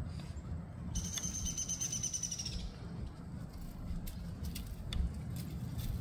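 A bird calling once: a rapid pulsed trill about a second and a half long that falls slightly in pitch, starting about a second in. A steady low rumble runs underneath, with a soft low bump about five seconds in.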